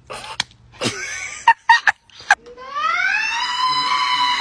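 A voice drawing out a long "mmwhhaaaa" that slides up in pitch and is then held. A few short clicks and knocks come before it.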